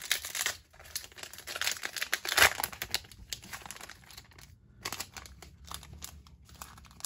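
Foil wrapper of a Pokémon card booster pack crinkling and being torn open, in irregular crackling bursts, loudest about two and a half seconds in.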